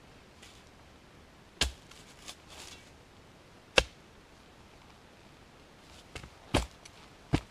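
Steel spade blade chopping into leaf-covered forest ground: four sharp strikes, the last two close together, with faint leaf rustling between.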